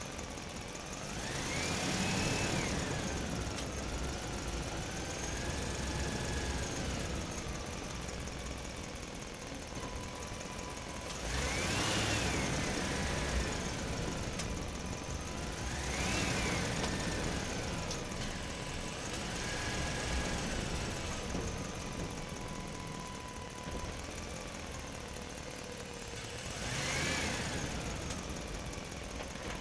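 Fiat 480 diesel tractor running with its air-blast boom sprayer's blower. The sound swells and rises in pitch, then falls back, about four times.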